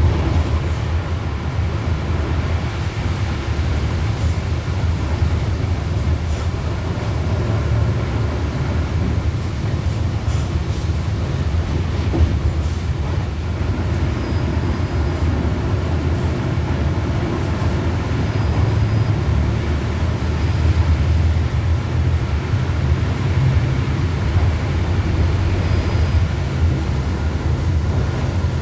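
Volkswagen Volksbus 17.230 OD Euro 5 bus driving: a steady low engine rumble with its gearbox growling, and a few brief rattles.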